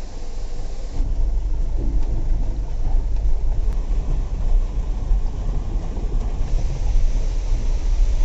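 Inside the cab of a Mitsubishi Canter HDL diesel truck: a heavy, uneven low rumble from the engine and the truck jolting over a rough, potholed road in heavy rain. It gets louder about a second in.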